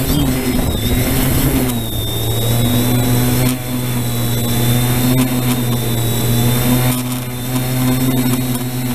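Multirotor drone's electric motors and propellers humming steadily, with a thin high whine above the drone and small shifts in pitch as the throttle changes.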